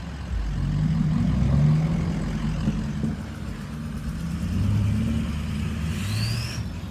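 A parade of cars and trucks driving slowly past, engines running and rising and falling in pitch as vehicles pull by and speed up. A short rising high-pitched tone sounds near the end.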